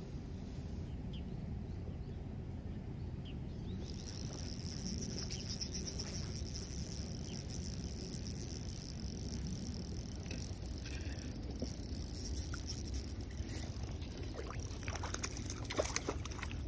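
A Shimano Vanquish spinning reel is cranked steadily as a fish is played in, over a low outdoor rumble. Near the end a hooked trout splashes hard at the surface as it is scooped into a landing net.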